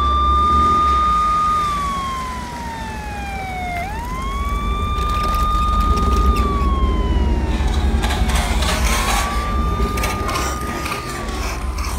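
Electronic toy police siren: a tone that rises quickly, holds, then slides slowly back down, repeating about every five seconds, the last cycle fainter. Clicks and knocks of handled plastic toys come in during the second half.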